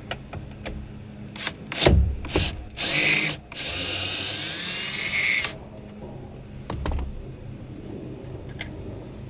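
Power drill with a 10 mm socket spinning out a bolt: a short burst of the motor, then about two seconds of steady running. A few clicks and knocks come before and after, as the socket is fitted and the bolt comes free.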